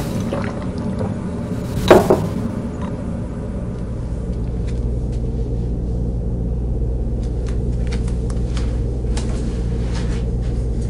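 A low, steady rumbling drone, with one sudden loud hit about two seconds in and faint scattered clicks later on.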